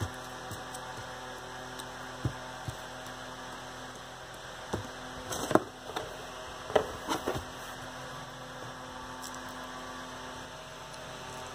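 Glass beer bottles and their cardboard case being handled: a handful of short knocks and taps, the loudest a little past the middle, over a steady electrical hum.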